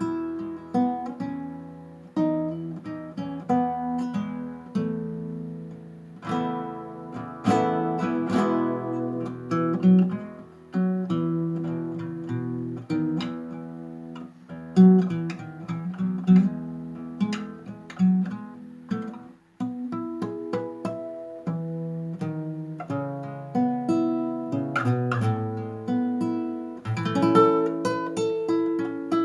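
Gentle acoustic guitar music, plucked and strummed notes ringing and decaying at a slow, calm pace.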